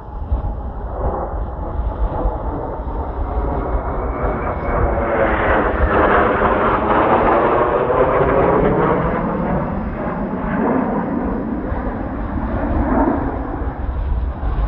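Kawasaki T-4 jet trainer of the Blue Impulse team flying past, its jet noise swelling to a peak about six to eight seconds in with the sweeping, phasing sound of a flyby, then easing off. Strong wind buffets the microphone underneath.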